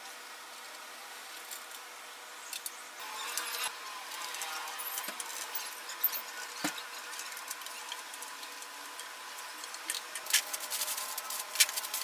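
Scattered clicks, clinks and scraping of hand tools and small metal panel parts being handled, with a single duller knock about halfway and a quick run of clicks near the end, over a faint steady hum.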